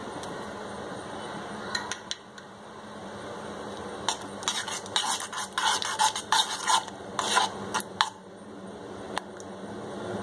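A metal spoon stirring cream into milk in a saucepan, scraping and clinking against the pan in a quick run of strokes from about 4 to 8 seconds in, over a steady background hiss.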